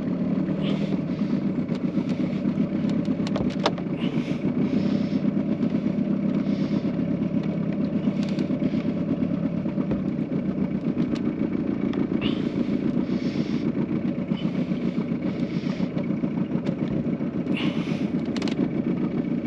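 Small outboard motor running steadily at low speed, with an even low buzz.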